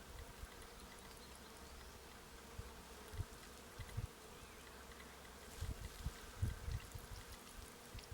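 Honey bees buzzing in a faint, steady drone around a newly installed package hive, with a few low bumps on the microphone.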